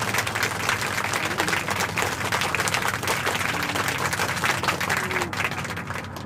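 Small waves lapping and splashing against shoreline rocks, a dense steady crackling wash.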